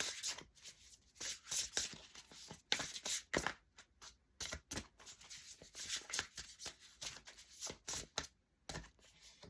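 Oracle card deck being shuffled by hand: a run of irregular quick flicks and papery slaps of the cards against each other.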